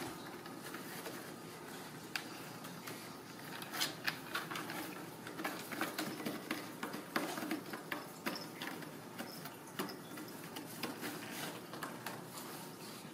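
Ragdoll kittens scuffling on a corrugated cardboard cat scratcher and a hardwood floor: irregular claw scrapes, taps and scrabbling, busiest in the middle.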